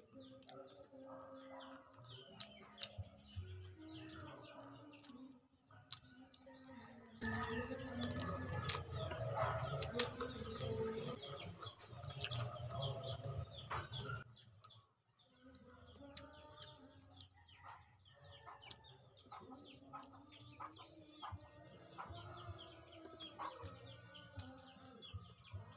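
Small birds chirping over and over, with a louder stretch of low, broad noise from about 7 to 14 seconds in.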